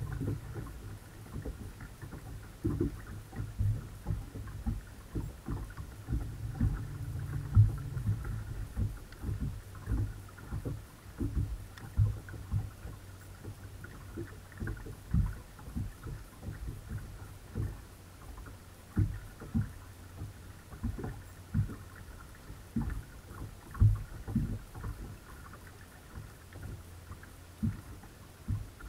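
Small waves slapping against a fibreglass bass boat's hull, carried through the deck-mounted camera as irregular low knocks, over the steady hum of the bow-mounted electric trolling motor.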